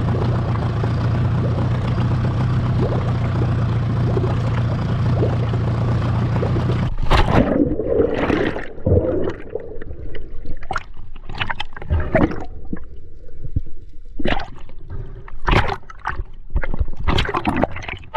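A Yamaha outboard motor running steadily at low revs; about seven seconds in it cuts off abruptly, and the rest is water sloshing and gurgling around a camera at and under the surface, with irregular splashes and bubbles.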